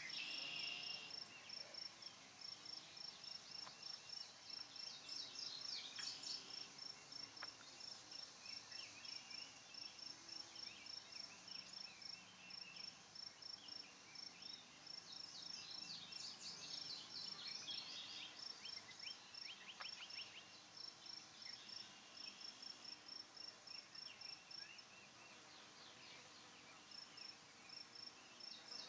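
Faint outdoor ambience: an insect chirping in a steady high-pitched pulse, about two or three chirps a second, pausing briefly near the end, with bird chirps now and then.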